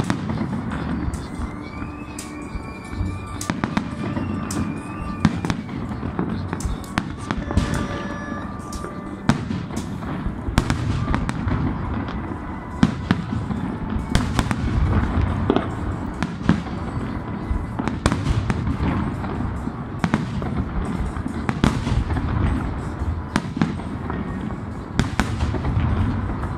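Fireworks display: a continuous barrage of sharp bangs, several a second, over a dense low rumble of bursting shells and crackle.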